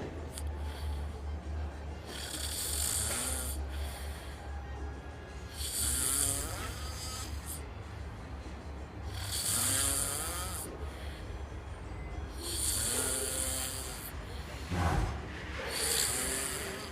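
A lizard snoring: a rasping, hissing breath repeated about every three and a half seconds, five times.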